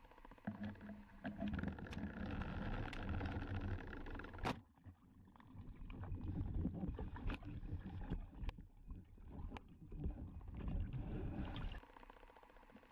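Underwater water-rush and handling noise on a speargun-mounted camera as the diver moves, in rough swells, with scattered clicks and one sharp click about four and a half seconds in.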